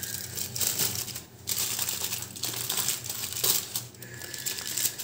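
Aluminium foil crinkling and crackling as it is folded over and wrapped shut, with a couple of short pauses.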